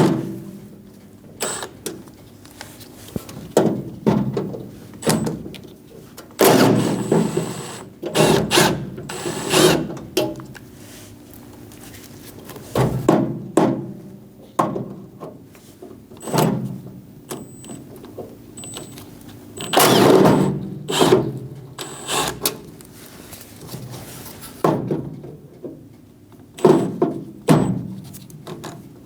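Repeated short bursts of a power driver backing out the T30 Torx screws that hold a door lock actuator, with knocks and clunks of tool and door handling between them.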